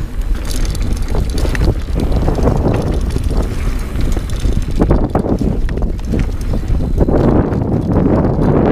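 Dartmoor Primal 29er hardtail mountain bike riding fast down a dirt trail: tyres rolling over packed dirt and leaves, and the bike rattling and knocking over bumps, with wind noise on the microphone.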